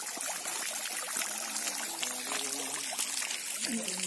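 Garden pond fountain, its jet of water spraying up and splashing steadily back into the pond. Faint voices come in during the second half.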